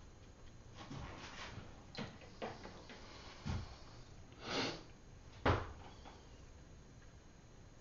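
A paintbrush being handled at the water jars: a scatter of light knocks and taps, a short breathy hiss about four and a half seconds in, and a sharp tap, the loudest sound, about five and a half seconds in.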